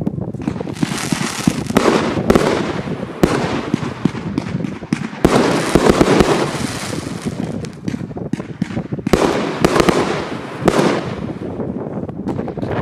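A 200-shot 1.2-inch (30 mm) fireworks cake firing in quick succession: a steady stream of sharp shot bangs and star bursts, several much louder than the rest, over dense crackling.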